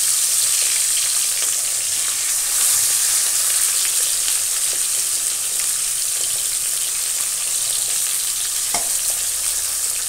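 Pabda fish frying in hot mustard oil in a karahi: a steady high sizzle with fine crackling.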